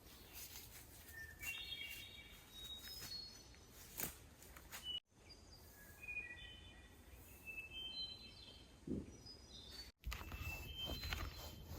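A songbird singing outdoors: runs of short, clear whistled notes that step up and down in pitch. Faint background noise with a few scattered taps lies under it, and the sound cuts out abruptly twice.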